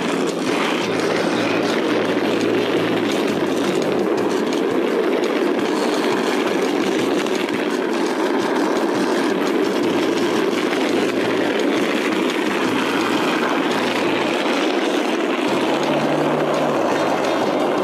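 Skateboard with wide cruiser wheels rolling along asphalt: a steady, even rolling noise that runs on without a break.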